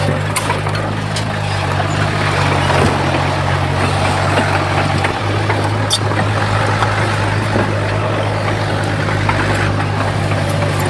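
Heavy diesel engine of earthmoving machinery running steadily with a low drone, its pitch shifting slightly about five seconds in.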